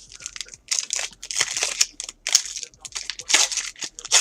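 Foil trading-card pack wrapper crinkling and tearing as a pack is opened: an irregular run of rustles and crackles.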